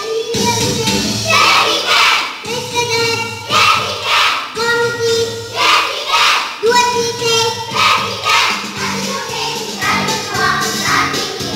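Kindergarten children's choir singing together over musical accompaniment, with several long held notes.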